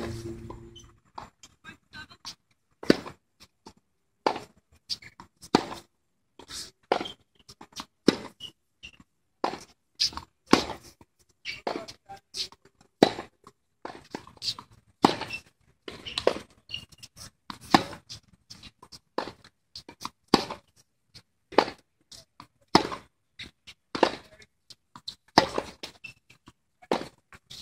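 Tennis rally on a hard court: sharp pops of a tennis ball struck by rackets, with softer ball bounces between, about one every second, keeping an even rhythm.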